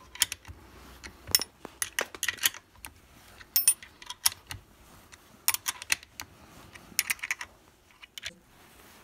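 Irregular metallic clicks and clinks of an open-end wrench on a nut and bolt, mixed with handling knocks on the wooden mount, as the rotary tool's mount is loosened to lower its grinding stone. The rotary tool is not running.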